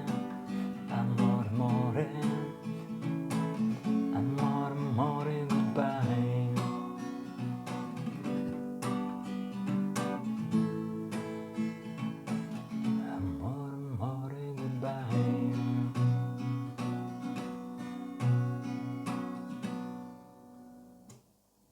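Pop song's instrumental ending: acoustic guitar plucked and strummed over a steady beat, fading out near the end.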